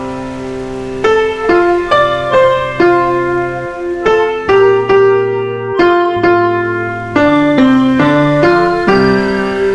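Slow, gentle solo piano music: single melody notes struck about every half second over held low notes.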